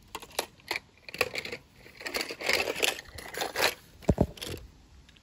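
Toy cars and plastic toys rattling and clicking against each other as they are handled in a wicker basket, with a thick rustle in the middle. Two low knocks come about four seconds in.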